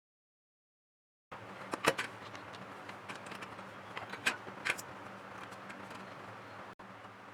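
About a second of dead silence, then light clicks and clinks of small hard parts being handled, the sharpest near the start, over a steady low hum.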